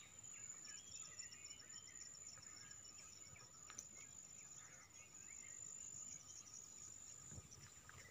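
Faint field ambience: a steady high insect buzz with a few scattered bird chirps.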